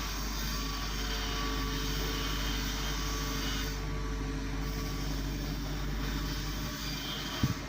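Volvo EC210D hydraulic excavator's diesel engine running steadily under work, with one brief low thump near the end.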